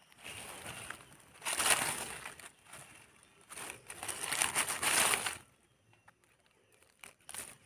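Crinkling, rustling handling sounds in three long bursts and one short one near the end, made as a freshly picked mushroom is cleaned and handled over dry leaf litter.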